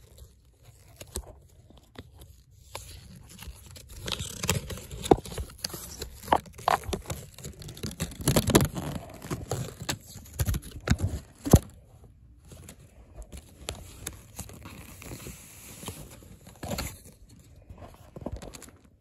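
Hands handling a wooden toy train car and its cardboard packaging: irregular rustling and scraping with scattered clicks and knocks, busiest in the middle, with a couple of sharper knocks.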